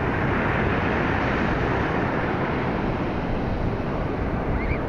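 Steady rush of big breaking surf, with wind rumbling on the microphone.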